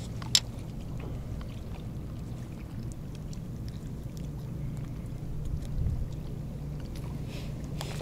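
A steady low hum runs throughout, with a few faint clicks and rustles as a crucian carp and a landing net are handled, and a soft low thump near the end.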